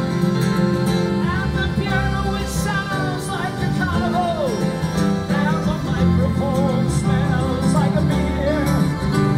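Live music: a voice singing a melody over guitar and electric keyboard.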